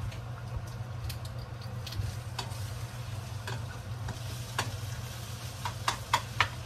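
Food frying in oil in a pan: scattered crackles and pops, several close together near the end, over a steady low hum.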